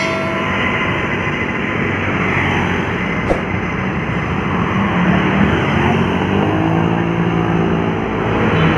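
Busy road traffic with buses passing close by. A heavy engine drone builds and rises slightly in pitch in the second half, and there is one short click about three seconds in.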